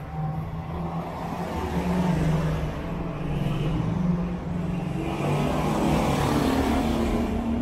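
Street traffic: a car engine running close by, with a vehicle passing near from about five seconds in.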